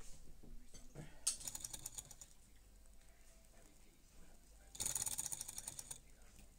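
Small toy Stirling engine running, its flywheel and linkage rattling in a fast, even train of clicks that grows louder in two spells, about a second in and again near five seconds.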